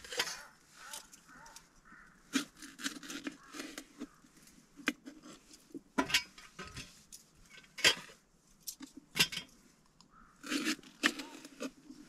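Knife cutting potatoes on a cutting board: irregular sharp chops as the blade meets the board, a few seconds apart, with small scraping and handling sounds between.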